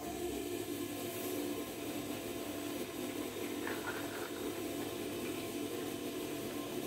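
Steady hum and churning of a meat stuffing machine as filling is forced through its stuffing tube into a spleen.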